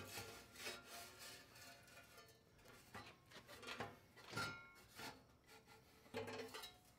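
Steel coolant-guard pieces sliding and scraping against each other and the grinder table as they are pushed into place, with faint, intermittent scraping and light metal clicks.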